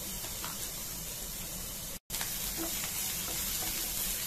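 Onion sizzling as it fries in hot oil in a non-stick pan: a steady hiss, broken by a split-second gap about halfway through.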